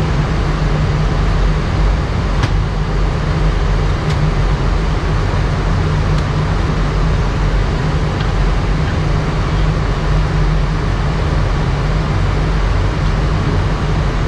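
Steady cockpit noise of an Airbus A319 descending with its engines at idle thrust: an even rush of air with a heavy low rumble and a couple of faint clicks.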